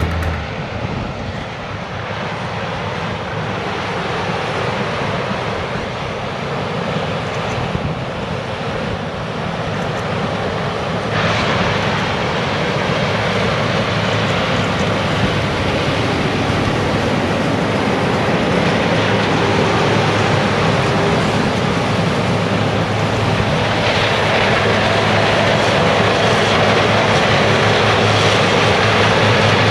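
Heavy diesel harvest machinery running steadily under load, a constant low engine hum under a dense mechanical rush. It grows louder and brighter in two steps, about a third of the way in and again past the two-thirds mark.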